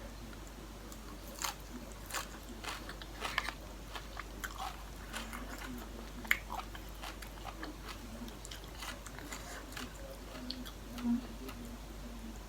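A person chewing and biting into food with scattered small crunches and wet mouth sounds: eating a spicy Thai seafood salad.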